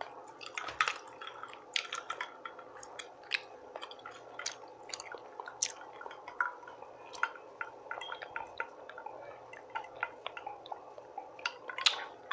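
Close-miked wet chewing and mouth smacking: many short, sticky clicks at an irregular pace.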